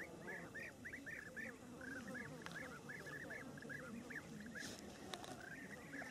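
A flock of birds calling without a break, with many short, arched calls several times a second.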